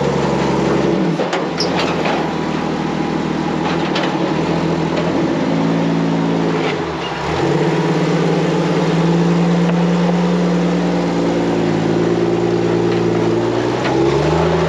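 Tube-chassis rock buggy's engine revving under load as it crawls up a near-vertical sandstone ledge, the revs rising and falling, dropping briefly about halfway through and then climbing back. A few sharp knocks sound in the first four seconds.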